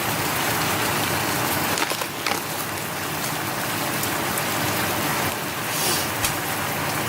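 Chicken and sauce sizzling steadily in a frying pan, with a few faint clicks.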